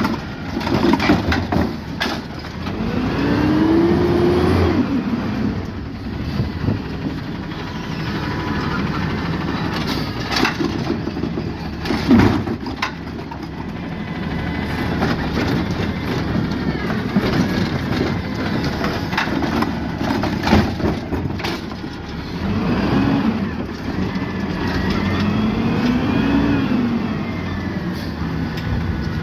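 Peterbilt 520 side-loader recycling truck running, its engine revving up and back down twice, with a few sharp clanks between the revs.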